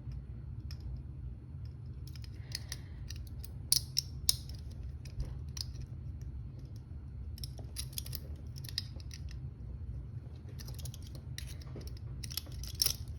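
Small metallic clicks and scrapes of picks working inside a steel handcuff's keyhole, in scattered ticks and short clusters with a couple of sharper clicks about four seconds in, over a steady low hum.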